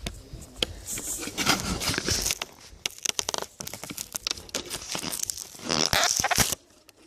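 Close rustling, scraping and crackling with many sharp clicks, like something rubbing and knocking right against the microphone. It comes in uneven bursts, the loudest one near the end, and then stops suddenly.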